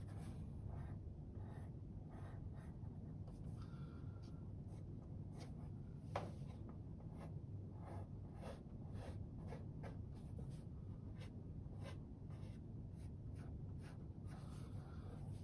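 Graphite pencil scratching on paper in short, irregular strokes as a sketch outline is gone over and darkened, with a single sharper tick about six seconds in, over a steady low hum.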